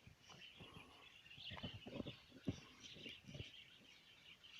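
Faint, continuous chirping and twittering of many small caged aviary birds, with a few soft knocks in the middle.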